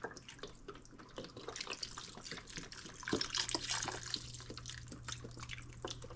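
Beef broth and seasonings sizzling and crackling in a hot cooking pot, a steady patter of small pops over a hiss, busiest about halfway through.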